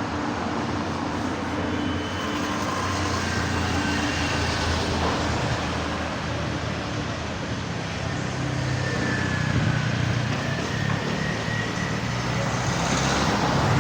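Street traffic noise: a steady rumble of passing cars and other vehicles, with faint indistinct voices mixed in.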